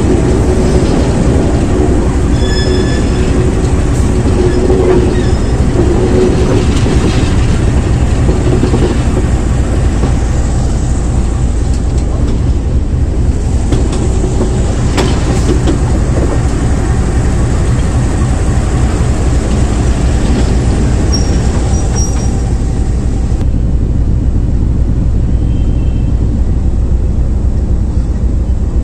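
Pakistan Railways RGE-20 diesel-electric locomotive 5104 running, heard from on board as it backs along the track: a steady heavy rumble of the engine and wheels on rail. A few thin, high wheel squeals come through on the curve.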